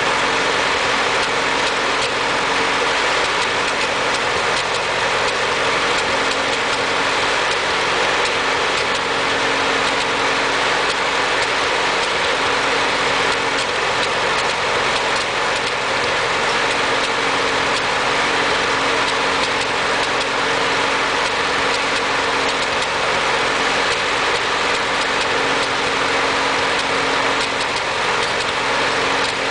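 Ford 8N tractor's four-cylinder flathead engine running steadily with an intermittent skip, a misfire that the owner cannot yet place between the carburettor and the distributor.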